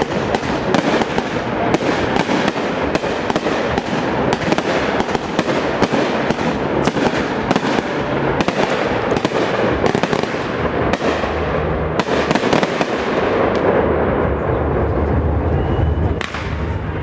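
Aerial fireworks display: a rapid, dense run of bangs, several a second, with crackling between them. The bangs thin out near the end.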